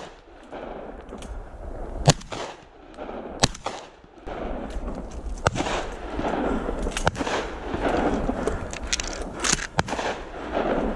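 Hunters' gunshots, single sharp reports a second or two apart, then several in quick succession near the end, over a steady rustling noise.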